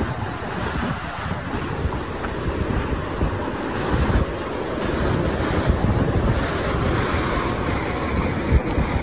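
Fast mountain river rushing over boulders, a loud steady roar of white water, with wind buffeting the microphone in irregular low gusts.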